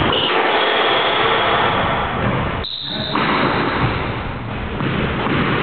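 Squash rally on court: ball strikes off racket and walls and players' shoes on the wooden floor, heard as loud, dense, harsh noise with a brief dip about two and a half seconds in.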